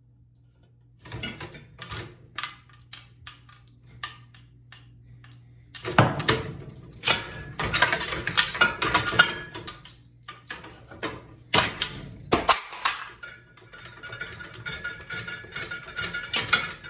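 Broken ceiling fan parts clattering and clinking, with irregular sharp knocks. The clatter is densest about six to ten seconds in, and a few loud strikes come a little after that.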